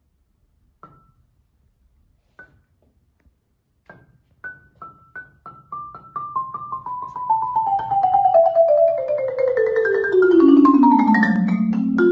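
Kolberg concert marimba played with four mallets. A few single strokes on one high note, then notes coming faster and faster and running steadily down the wooden bars into the low register, getting louder as they descend.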